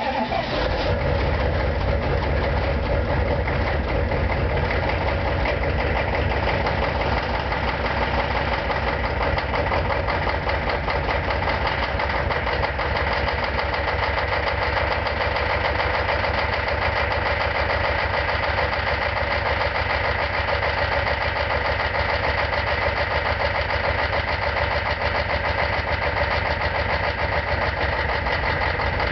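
6.5-litre V8 diesel engine of a 1993 Chevrolet K2500 idling right after a cold start at −22 °C without the block heater plugged in. The revs settle in the first second, then it idles steadily.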